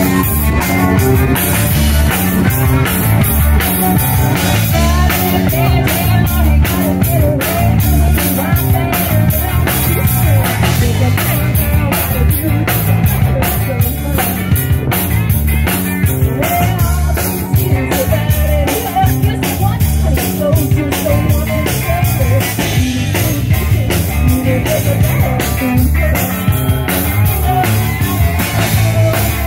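Live rock band playing loudly on electric guitars and a drum kit, with a steady driving beat.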